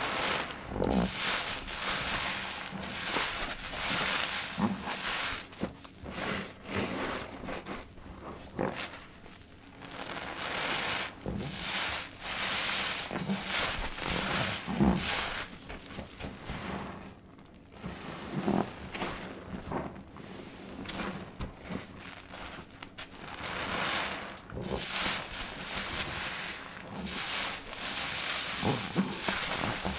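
Soap-soaked blue sponges squeezed and kneaded in thick lather by gloved hands: wet squishing and squelching of foam, coming in repeated swells with brief lulls.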